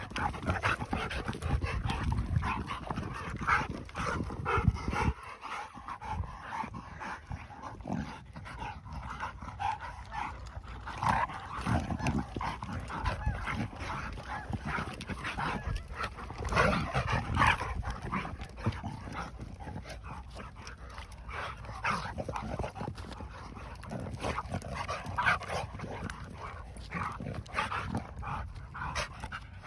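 Two mixed-breed dogs play-wrestling, vocalising in short, irregular bursts, loudest about four seconds in and again past the middle.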